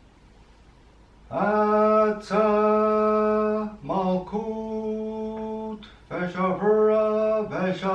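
A man vibrating a Hebrew divine name in ritual chant. He draws out the syllables one by one, each held on the same steady low pitch for one to two seconds, starting about a second in.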